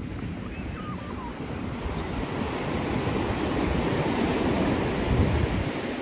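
Ocean surf washing up the beach, swelling to a peak about five seconds in and then falling away, with wind rumbling on the microphone.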